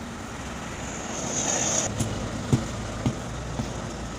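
Truck tyre shop work with an engine running: a short hiss, then four sharp metallic knocks about half a second apart, the second the loudest.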